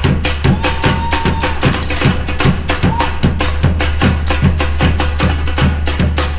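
Brazilian percussion ensemble playing a fast batucada groove together: deep bass drums under a dense, steady run of sharp drum and wood strikes.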